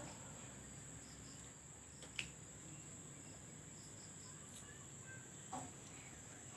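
Faint, steady chirring of crickets, with a single sharp click about two seconds in and a brief short sound near the end.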